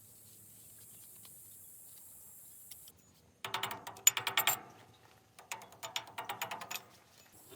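Ratchet wrench clicking in two quick runs of about a second each, roughly ten sharp clicks a second, while working on the loader's steering cylinder.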